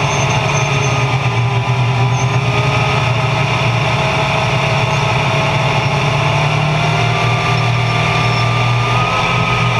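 Race car engine heard from inside the cockpit, running steadily at low speed while rolling in formation, its pitch holding nearly level.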